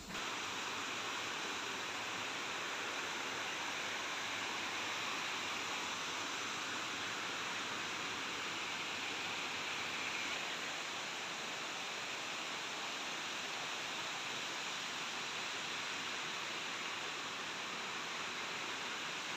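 Shallow forest creek flowing steadily over rocks and around fallen logs, an even rushing sound of running water.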